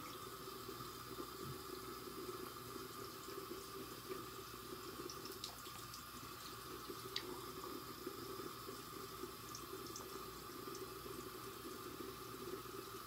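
Water tap running steadily into a sink, with a few faint clicks.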